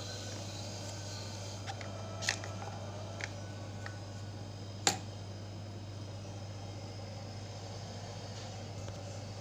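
Refrigerator compressor running with a steady low hum while the fridge is being charged with refrigerant. A few sharp clicks, the loudest about five seconds in.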